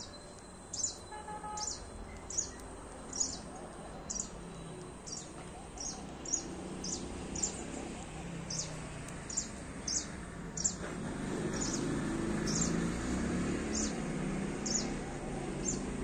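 House sparrows chirping: a run of short, high chirps, a bit more than one a second and unevenly spaced. Under them a low background rumble gets louder past the middle.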